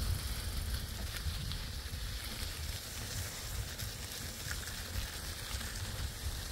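Wind rumbling and buffeting on the microphone over a steady outdoor hiss, with a few faint ticks.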